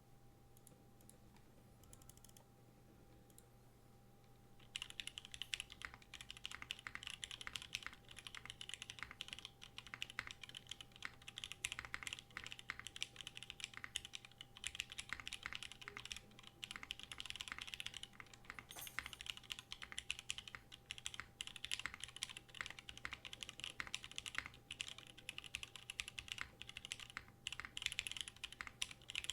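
Bachoo Musashi TKL custom mechanical keyboard being typed on, its broken-in Nixie switches (55g) on an aluminium half plate in a top mount, under GMK keycaps, clacking. A few light taps at first, then fast continuous typing from about five seconds in.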